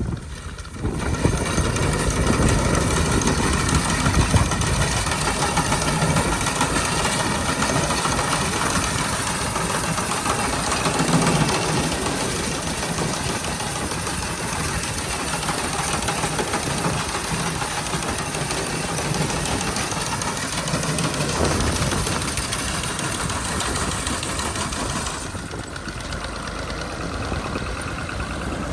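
Tractor diesel engine running steadily, a little quieter near the end.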